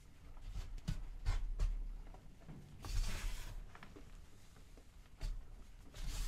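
Bare hands squeezing and pressing into loose crushed gym chalk powder: soft powdery crunching. A few short crunches come in the first two seconds, a longer rustling crunch about three seconds in, and more crunches near the end.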